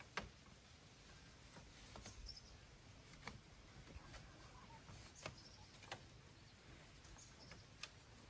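Quiet, with a handful of faint, irregular clicks and taps of split bamboo strips being handled and laid on the ground.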